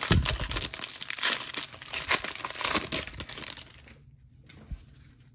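Wrapper of a 2021 Mosaic Baseball hobby card pack being torn open and crinkled, dying down after about three and a half seconds; one short soft knock near the end.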